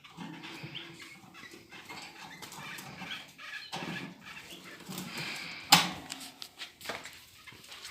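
Canaries in a cage: faint bird sounds and small movements, with one sharp click a little under six seconds in.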